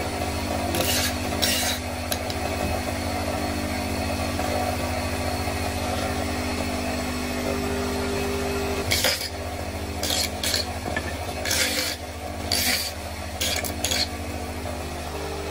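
Electric disc sander running steadily. Short rasps of wood being ground come twice near the start and several more times in the second half, as a wooden paintbrush handle is pressed against the spinning sanding disc to shape it.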